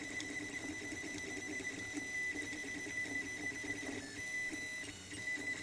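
RepRap-style 3D printer printing, its stepper motors giving a steady high whine over a fluttering lower buzz as the print head makes short, quick moves.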